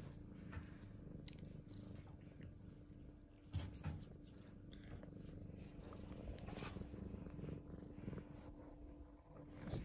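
British Longhair cat purring softly, a continuous low rumble, with a short thump about three and a half seconds in.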